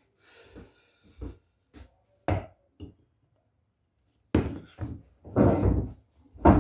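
A series of irregular knocks and clunks from objects being handled and set down, with a longer scraping rustle between about five and six seconds in, the loudest part. No rotary tool is running.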